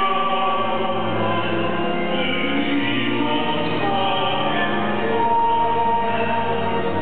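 A choir singing a slow hymn in long held notes, echoing in a large stone cathedral, over low sustained tones.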